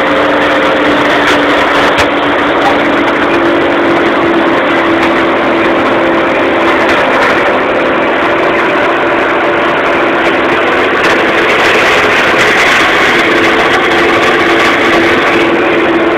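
Tractor engine running steadily under load while a boom-arm flail mower (Böschungsmäher) cuts a hedge: a loud, steady drone with a held hum.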